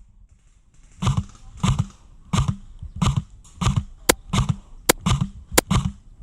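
Footsteps of a player walking with airsoft gear, a thud about every two-thirds of a second, with three sharp cracks in the second half.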